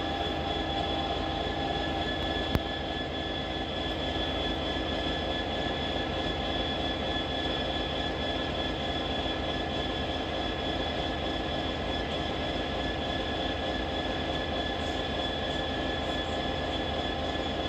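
Steady train engine drone at a railway station, with constant high whining tones over a low rumble, and one sharp click about two and a half seconds in.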